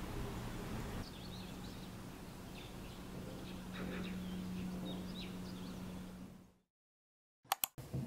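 Outdoor ambience with faint scattered bird chirps over a steady low hum. About six and a half seconds in it cuts to silence, followed by a few short clicks near the end.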